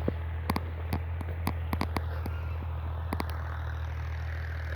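Steady low engine hum, with irregular sharp clicks over it.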